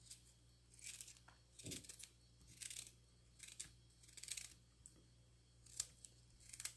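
Knife cutting raw carrot and ginger pieces: faint, short, crisp strokes repeating a little more than once a second.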